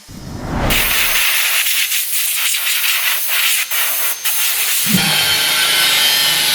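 Sandpaper rubbing over a fibre-cement GRC board as its cut edges are finished, a loud steady hiss. About five seconds in a low steady hum joins it.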